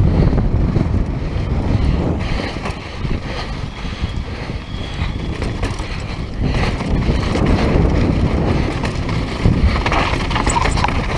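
Wind buffeting a GoPro's microphone during a fast downhill mountain-bike descent, over the rumble of tyres on a dirt trail. Scattered short knocks and rattles come from the bike over bumps.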